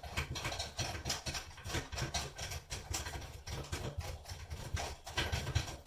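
Irregular small clicks and scrapes of a molly bolt's screw being turned by hand into its anchor in drywall, with low knocks of handling beneath.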